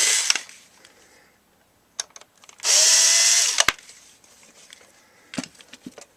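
Power drill/driver backing screws out of the air conditioner's capacitor cover: one run ends just after the start, and a second run of about a second, spinning up at its start, comes near the middle, each ending with a click. Faint small clicks of handling follow.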